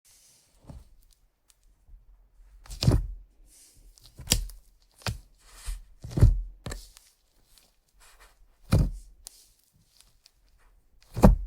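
Hands pressing and squishing slime, giving a series of separate wet pops and squelches, roughly one every second. The loudest come about three and six seconds in and just before the end.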